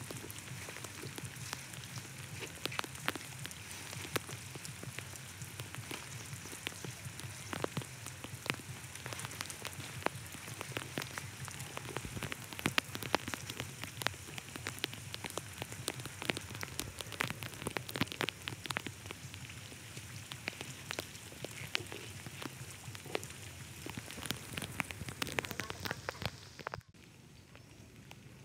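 Rain falling on wet ground and water: a steady hiss with a dense, crackling patter of drops. It cuts abruptly to a quieter, smoother background near the end.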